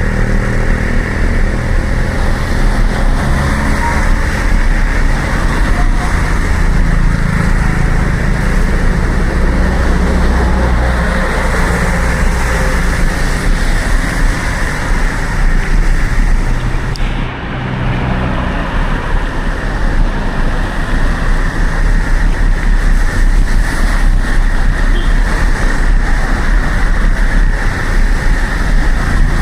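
Road traffic: motor-vehicle engines running close by over a steady rush of road and wind noise on a bicycle-mounted action camera, dipping briefly just past the middle.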